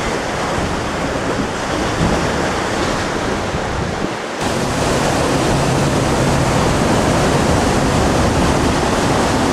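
Loud, steady rushing noise of wind and moving air aboard a car ferry. It changes abruptly about four seconds in to a steadier rush with a low hum underneath.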